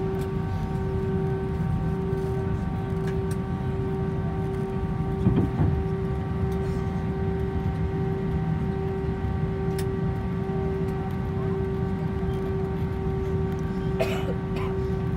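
Airbus A320 cabin noise while taxiing after landing: the jet engines at idle give a steady whine over a low rumble. There is a brief louder bump about five seconds in and a few light clicks near the end.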